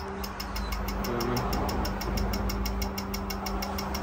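An engine idling steadily, with a low rumble, a steady hum and a quick, even ticking about eight times a second.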